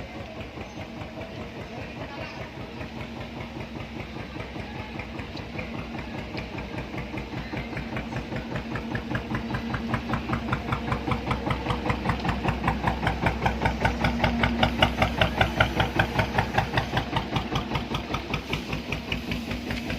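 Fishing boat's engine running with a steady rapid chugging of about five beats a second. It grows louder through the middle and eases slightly near the end.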